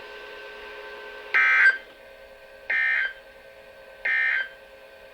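NOAA Weather Radio EAS end-of-message signal: three short, buzzy SAME data bursts about a second and a half apart, marking the end of the broadcast warning. A faint steady hum from the radio runs underneath.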